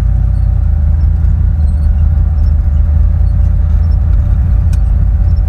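Turbocharged four-wheel-drive Suburban driving slowly on a snow-covered road, heard from inside the cabin: a steady low engine and road rumble with a faint steady whine over it.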